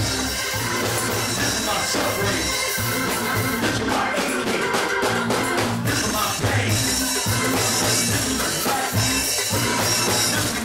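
Loud up-tempo gospel praise music from a church band, driven by a drum kit and a repeating bass line.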